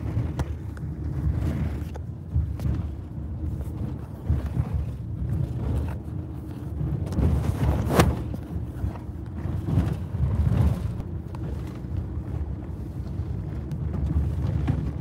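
Steady low road rumble inside a moving car's cabin, with a sharp knock about eight seconds in.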